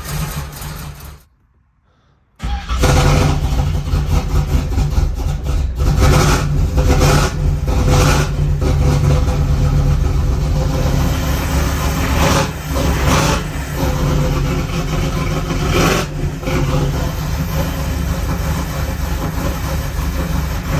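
Supercharged small-block Chevy V8 running loud and rough. It drops away to near silence about a second in, then runs again with a few short sharp blips. The engine is freshly reassembled and still needs carb tuning and timing adjustment.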